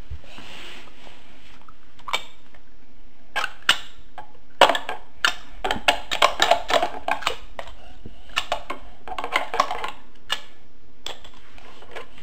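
Plastic toy garbage truck and a toy trash bin being handled, with irregular light clicks, clacks and rattles of plastic on plastic, in several quick clusters.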